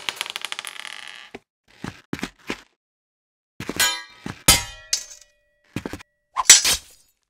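Added sound effects for a Lego minifigure fight. First a rapid rattle of small clicks dies away over the first second or so. Then comes a series of sharp metallic clangs of weapons clashing, some with a short ring after them, the loudest near the end.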